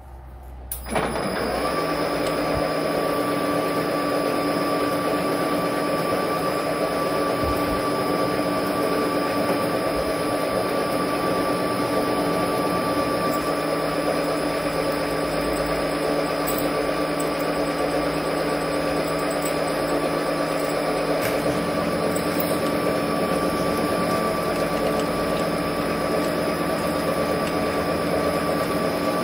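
Metal lathe switched on about a second in, then running steadily with its chuck spinning, a steady machine hum with an even whine from the motor and headstock gears.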